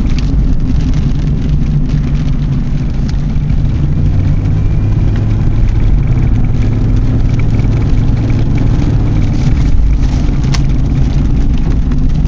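Car engine and road noise heard from inside the cabin while driving: a steady low rumble, with a held engine note from about four seconds in until shortly before the end.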